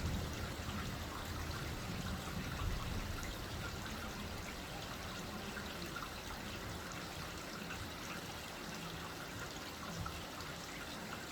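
Steady light rain: an even hiss of falling water.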